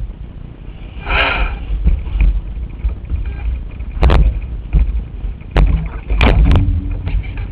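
Gusty wind buffeting the microphone of a camera mounted on a radio-controlled sailing yacht, an uneven low rumble with a brief rush of hiss about a second in and several sharp knocks from the boat in the second half.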